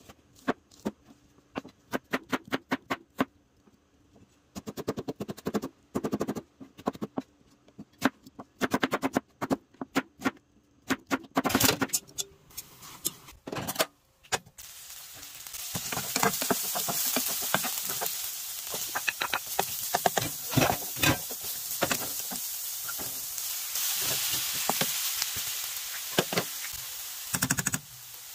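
A knife chopping sheets of fish cake on a cutting board: quick sharp taps in bunches. About halfway through, oil starts sizzling in a nonstick frying pan and keeps up a steady sizzle as fish cake and vegetables are stir-fried, with clicks of the spoon and chopsticks.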